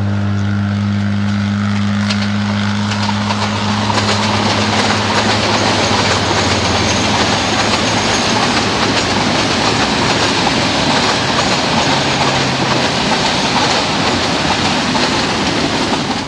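Metre-gauge train running past: a low steady engine drone fades over the first several seconds, leaving the steady rushing rumble of the coaches' wheels on the track.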